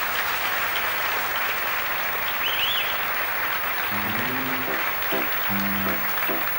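Theatre audience applauding steadily, with a short whistle about halfway through. About four seconds in, a live band starts a new tune under the applause with short rhythmic chords.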